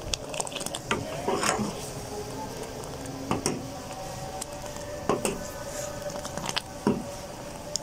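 Boiling green-tea kahwa ladled up and poured back into an aluminium pot from a height, splashing steadily, with a sharp metal clink about every two seconds as the steel ladle knocks the pot. This is the repeated ladling that aerates Kashmiri chai kahwa. A faint steady hum runs underneath.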